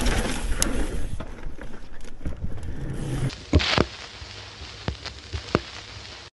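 Mountain bike riding over a dirt trail, heard from a handlebar-mounted camera: a rumble of wind and tyres with rattling clicks from the bike. A little past halfway it drops suddenly to a much quieter hiss with a few sharp ticks.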